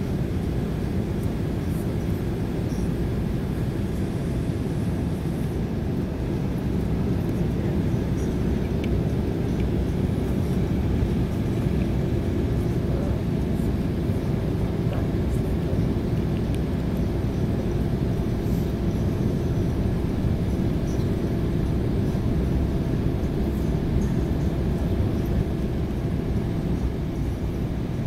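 Embraer 190 cabin noise in flight: the steady low rumble of its GE CF34 turbofan engines and rushing airflow, heard from a seat by the wing.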